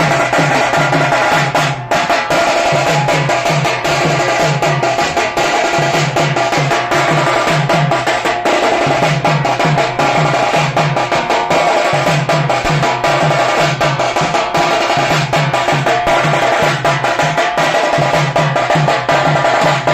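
Up-tempo drum-heavy dance music with a repeating bass figure and busy percussion.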